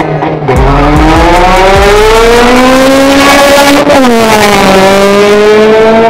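A Honda Civic sedan and a Volkswagen hatchback launching off a drag strip start line at full throttle, their engines revving up hard. The engine pitch climbs, drops once about four seconds in at an upshift, then climbs again.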